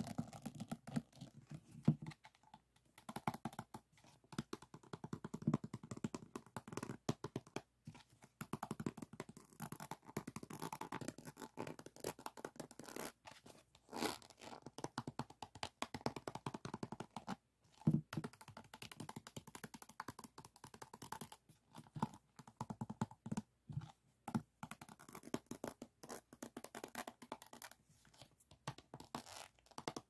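Fingers scratching, rubbing and tapping over the faceted resin drills of a finished diamond painting. It makes a dense, irregular patter of small clicks and scrapes with brief pauses.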